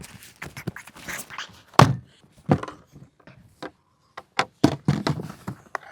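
Irregular knocks, thuds and clatter of toy-gun boxes and plastic parts being handled and opened, the loudest knock a little under two seconds in.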